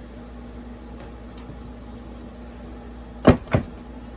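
Two sharp metallic knocks about a quarter second apart near the end, with faint tool clicks before: a flywheel puller being worked on a STIHL MS460 chainsaw's flywheel as the flywheel breaks free of the crankshaft taper.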